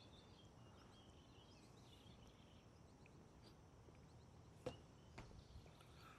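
Near silence: faint outdoor background with a few faint high chirps and one soft click about three-quarters of the way through.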